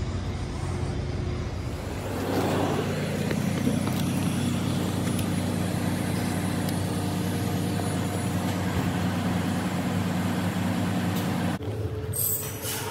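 An engine running steadily, a low hum with a fixed pitch, that drops away suddenly near the end.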